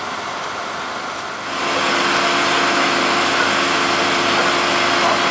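Steady engine noise at first; about one and a half seconds in it steps up to a louder, even drone of a small engine running at a constant speed.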